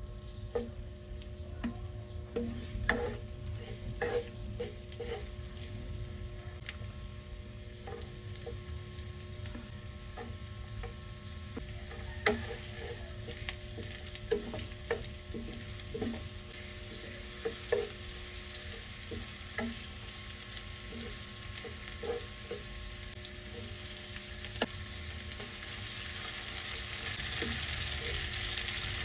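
Cooking in a kitchen: scattered light clinks and knocks of a utensil against a pan over a steady low hum. A hiss grows louder near the end.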